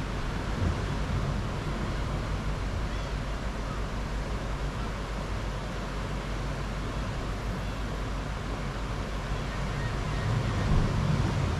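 Steady wash of surf and wind rumbling on the microphone, swelling a little near the end.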